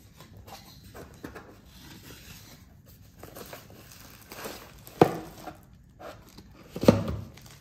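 Small cardboard product box being opened by hand: soft rubbing and scraping of the card flaps, with two sharp knocks about five and seven seconds in. Near the end, a bubble-wrapped item is drawn out of the box.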